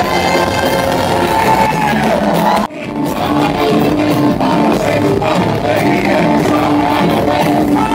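Live gospel music with a group of male singers. The sound cuts out for an instant about a third of the way through and picks straight back up.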